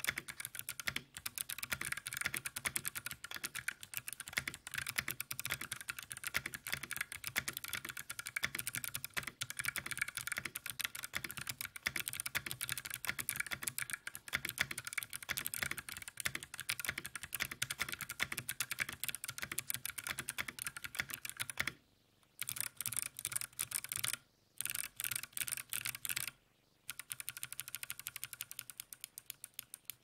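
Fast typing on a 60% mechanical keyboard with an aluminium case and plate, fitted with Kailh BOX Jade clicky switches: a rapid, dense stream of sharp clicks, quite loud and high-pitched. A few brief pauses come in the last third, and the typing stops near the end.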